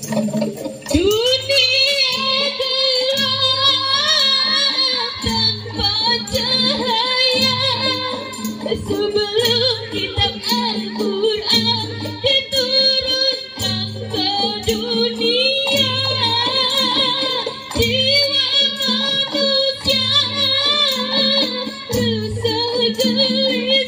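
A woman singing long, wavering, ornamented notes over music with a steady drum beat.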